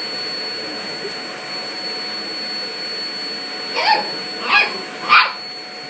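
Vacuum cleaner running with a steady high whine, as a toy poodle barks at it three times in quick succession in the second half, short high yapping barks.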